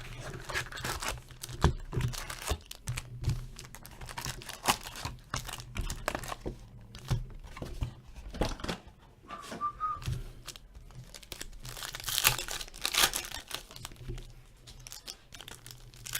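Hockey card pack wrappers being torn open and crinkled by hand: irregular ripping and crackling rustles, heaviest near the end.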